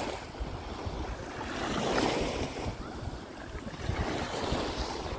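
Small Baltic Sea waves washing up a sandy beach and running back, a steady hiss that swells about two seconds in and again near the end.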